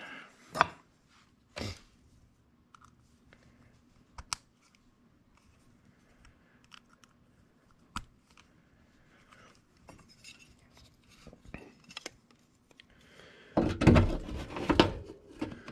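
Hands working a blower motor's run capacitor and its wiring inside a sheet-metal air handler cabinet. A few sharp, spaced-out clicks and taps, then a louder stretch of knocking and rattling near the end as the capacitor is fitted back against the cabinet.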